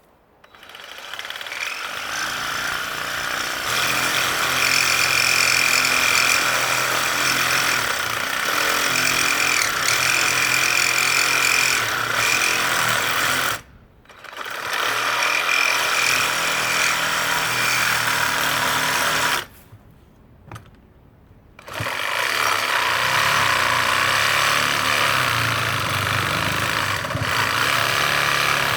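Sawzall reciprocating saw cutting through a tire's steel bead at the rim, running steadily at full speed. It stops briefly about halfway through, and again for about two seconds a little later, before starting up again.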